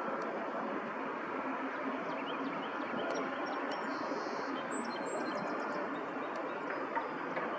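Steady outdoor background noise, a low even rumble like distant traffic, with a few faint high bird chirps in the middle.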